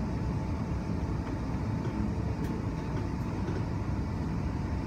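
Interior of an electric suburban train running along the line: a steady low rumble of wheels on track, with a faint steady tone above it.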